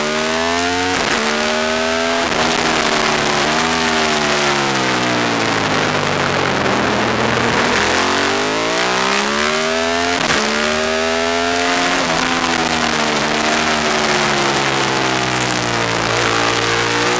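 Aprilia SXV550 supermoto's V-twin engine heard onboard at racing speed: it revs up through the gears, its pitch dropping sharply at each upshift, falls away under engine braking near the middle and then revs up again. Heavy wind rush on the microphone runs under it throughout.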